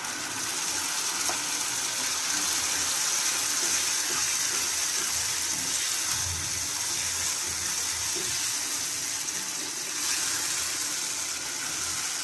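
Grated tomato sizzling in hot oil over fried onions in a nonstick kadai while being stirred: a steady hiss.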